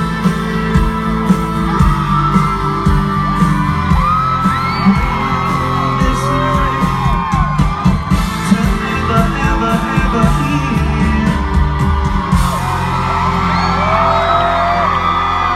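A live country band playing the closing instrumental of a song loud through a concert sound system, with steady drum hits. Crowd voices yell, whoop and sing along over the music.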